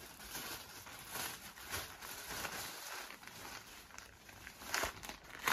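Faint rustling and crinkling of T-shirts in plastic packing being handled, with a few louder crackles near the end.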